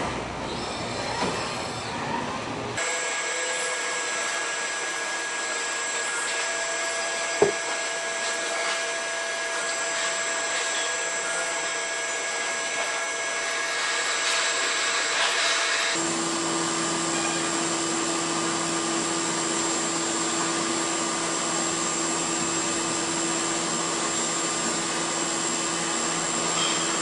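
CNC milling machine spindle running while an end mill cuts a metal workpiece: a steady whir and hiss with several high, level tones. The tones change abruptly about 3 seconds and 16 seconds in, with one sharp click about 7.5 seconds in.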